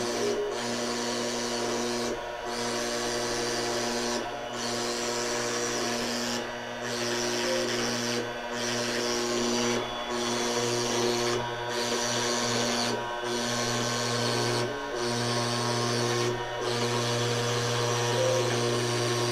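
CNC router spindle running with a small router bit cutting sheet material: a steady hum with a rasping cutting noise on top. The cutting noise briefly dips every couple of seconds.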